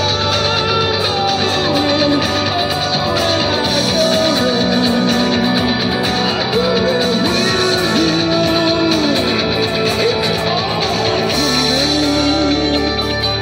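Electric guitar played along with a recorded rock song, with a steady bass line that changes notes a few times over the passage.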